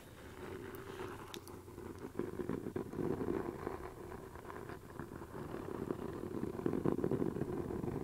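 Fingernails scratching and rubbing the worn cover of an old book held close to a binaural ASMR microphone: a dense, crackly scraping in uneven strokes that swells and eases.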